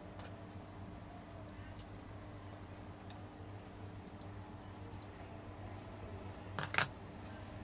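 Scattered faint plastic clicks over a steady low hum, with a louder double click near the end, from cables and connectors being handled and plugged into a monitor.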